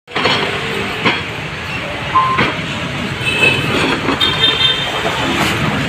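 Steady street traffic noise, with a few short knocks and some brief high-pitched tones over it.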